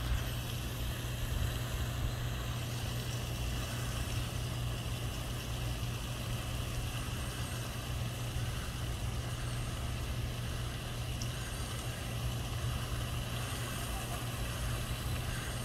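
A motor running steadily at idle with a constant low hum and no change in speed.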